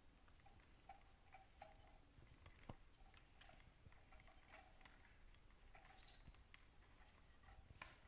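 Near silence: faint, scattered light ticks and clicks over quiet room tone.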